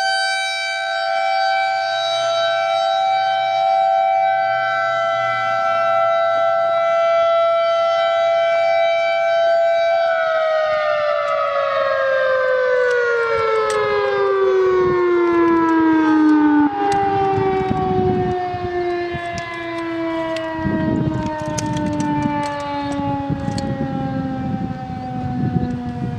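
Civil defense warning sirens hold a steady tone, then wind down from about ten seconds in, their pitch falling smoothly as the rotors slow. Near the end, wind gusts buffet the microphone.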